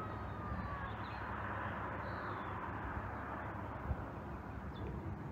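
Steady wind rushing, with a faint thin whistle falling slowly near the start and a short high chirp about two seconds in, from a small bird.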